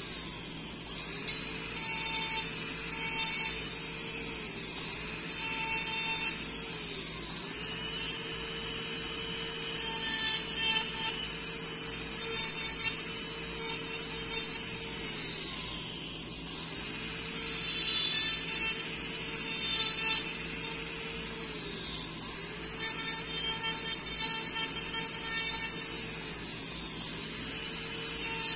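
Dental lab rotary handpiece with a bur, running with a steady whine while trimming and finishing the acrylic of an upper orthodontic retainer. Repeated louder, rough grinding bursts of a second or so come each time the bur bites into the acrylic, and the whine dips in pitch under the load.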